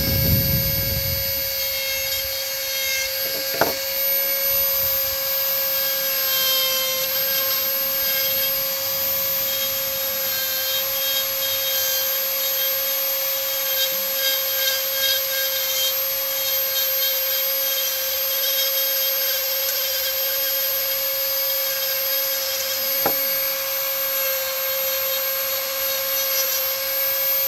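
Dremel rotary tool on a flex shaft running at a steady high whine while its burr grinds into wood, with the rasp of the bit on the wood throughout. Two sharp taps stand out, about four seconds in and again near the end.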